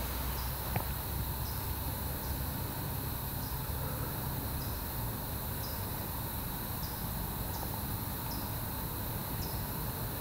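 A cricket chirping, one short high chirp roughly every second, over a steady low rumble and hiss, with a single sharp tick just under a second in.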